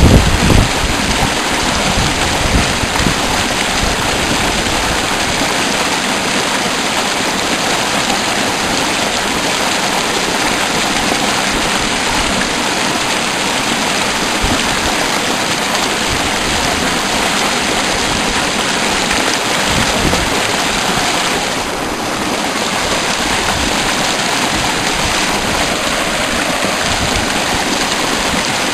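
A fast-flowing mountain river rushing close by, as a loud, steady wash of water noise.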